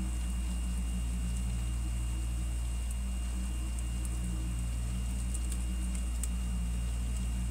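Mini freezer's compressor running: a steady low hum with a thin, faint high whine above it, and a few faint ticks.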